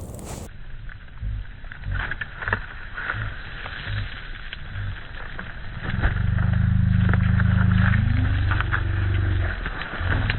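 Large campfire crackling with sharp pops. About six seconds in, a louder low droning hum comes in. It rises briefly in pitch, drops out near the end and then returns.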